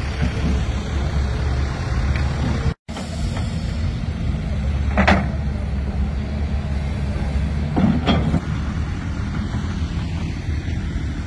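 Steady low rumble of a road vehicle driving, heard from on board, with two brief louder bumps about five and eight seconds in. The sound cuts out for a moment about three seconds in.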